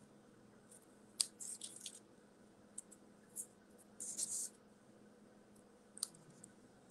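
Faint, short crisp rustles of stiff patterned paper being handled, in a few separate spurts, with a sharp click about a second in.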